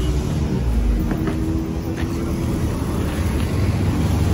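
A motor vehicle's engine running steadily, a low even drone with a few faint clicks.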